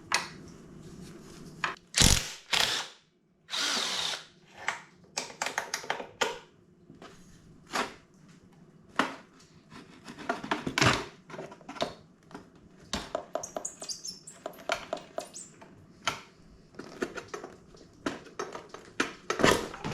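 Handheld power tool running in short bursts, with the clicks and knocks of hand tools in between.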